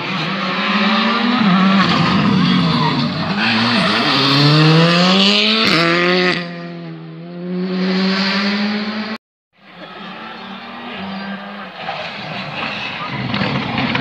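Rally car engine at full throttle, its note climbing steeply as the car accelerates past, then dropping off abruptly about six seconds in. After a brief cut-out, another rally car's engine is heard running and growing louder as it approaches.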